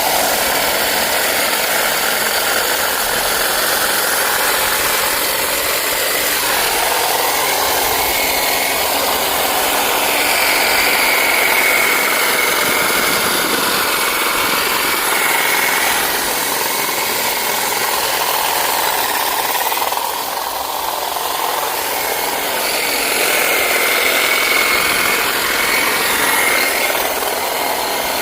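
Black & Decker Hedge Hog electric hedge trimmer running and cutting hedge: a steady buzz of motor and reciprocating blades with a wavering whine, dipping slightly in level for a few seconds past the middle.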